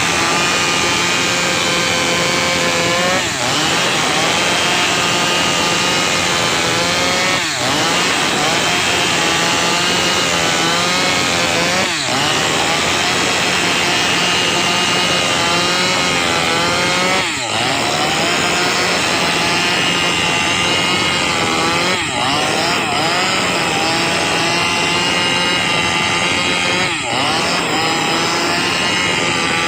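Maestro chainsaw running at full throttle, cutting through gmelina (white teak) wood. Its engine note dips briefly and recovers about every four to five seconds.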